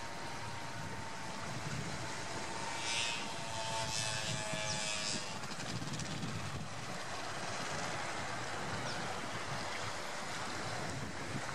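Gentle sea swell washing and lapping among kelp and rocks at the water's edge, a steady rush with a few brighter splashes from about three to five seconds in. A faint hum is heard under it in the first half, fading out around five seconds in.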